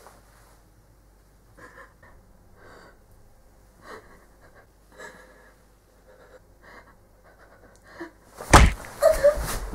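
A woman's quiet sobbing breaths, soft puffs every second or so, then a sudden loud thud about eight and a half seconds in, followed by loud gasps.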